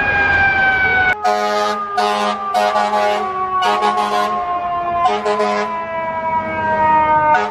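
Fire truck siren winding slowly down in pitch after a brief rise. About a second in, a steady lower hum and short, repeated hissy bursts join it.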